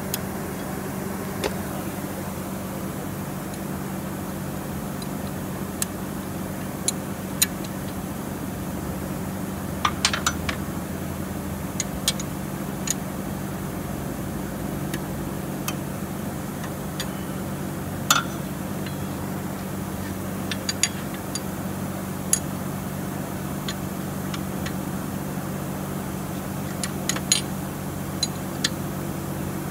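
Steady low mechanical hum, with scattered sharp clicks and taps every second or two.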